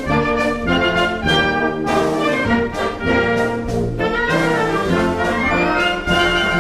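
Military wind band playing, with trumpets and trombones in the lead over the full ensemble, in rhythmic phrases of held notes.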